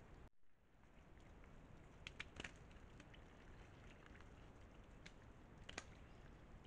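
Near silence: faint steady background noise with a few soft clicks and crackles, a cluster about two seconds in and a couple more near the end. The sound drops out briefly just after the start.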